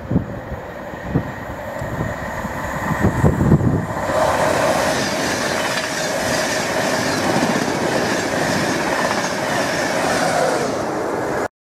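Virgin Trains East Coast InterCity 225 (Mk4 coaches propelled by a Class 91 electric locomotive) passing through at speed. A few low thumps from the wheels come first as it approaches, then a loud, steady rush of wheels on rail and air as the coaches go by, until the sound cuts off suddenly near the end.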